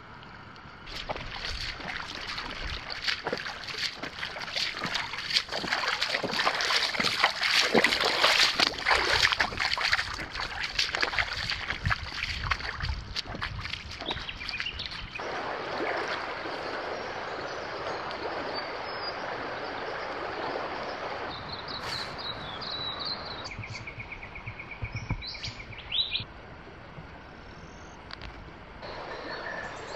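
Footsteps splashing and sloshing through a shallow, stony river, then the steady rush of water flowing over stones, with birds calling over a quieter stretch near the end, including a short trill.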